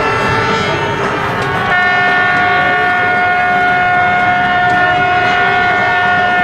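Many boat horns sounding together in a celebratory salute, several steady tones overlapping. A strong, long blast starts about two seconds in and holds to the end.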